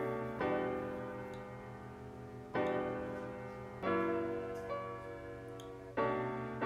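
Background music: soft keyboard chords, a new one struck about every one and a half to two seconds, each fading away before the next.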